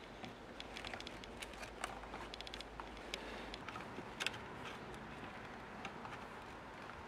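Faint scattered clicks and ticks of a screwdriver turning a screw into a wooden camera housing while hands handle the box, the sharpest click about four seconds in.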